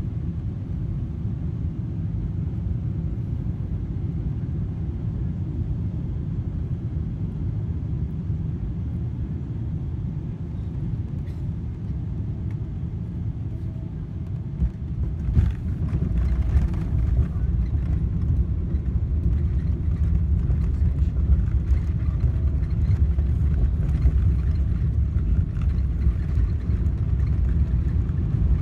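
Cabin noise inside a Boeing 777-300ER: a steady low rumble that, about halfway through, turns suddenly louder and heavier with scattered rattles and knocks, typical of the main wheels touching down and the jet rolling out on the runway.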